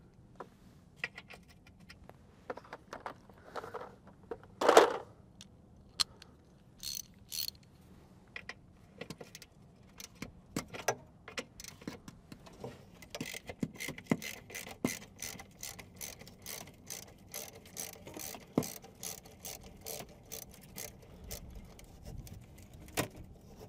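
Hand ratchet from a small metric socket set clicking as bolts are worked loose on a diesel bunk heater, with scattered tool clinks and one louder knock early on. In the second half the ratchet runs in a long, even series of about three clicks a second.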